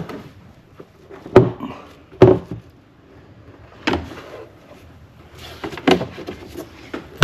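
Plastic engine cover of a Volkswagen 2.5 L being pressed down onto its rubber grommets: about four separate knocks and thumps a second or two apart, with light handling rattle between.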